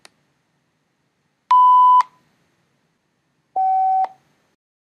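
A soft click, then two short electronic sine-wave beeps from an aliasing simulation, each about half a second long. The first beep is the original analog tone; the second, a little lower in pitch and slightly quieter, is the same tone digitally sampled below the Nyquist rate, its pitch shifted down by aliasing.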